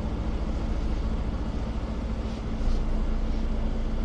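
Mercedes city bus heard from inside, under way: a steady low engine drone with road rumble.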